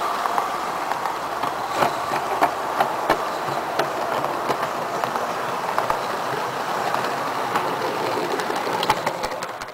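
16 mm scale model coaches rolling past close by on 32 mm gauge garden-railway track: a steady rolling rumble with irregular sharp clicks, about one or two a second, as the wheels cross rail joints.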